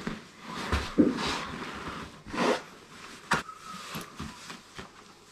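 Canvas swag being rolled up and strapped: repeated rustling and scraping of heavy canvas, with a sharp click about three and a half seconds in.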